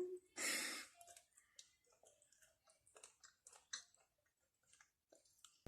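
A short breathy exhale, then faint chewing with small wet mouth clicks from someone eating hot chicken wings.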